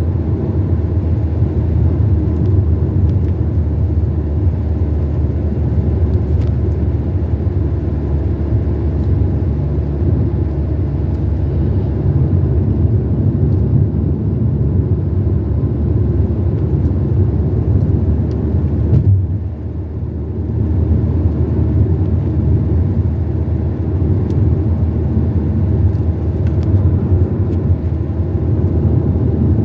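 Car driving along the road: a steady low rumble of engine and tyres, easing briefly about two-thirds of the way through.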